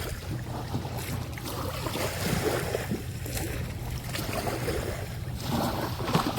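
Small ocean waves breaking gently on the shoreline: a steady wash of surf that swells louder about two and a half seconds in and again near the end.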